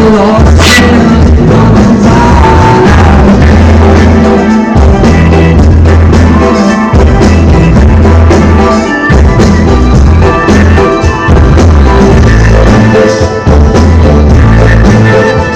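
Live band playing a song through a venue PA, drum kit and heavy bass to the fore, recorded very loud and muddy.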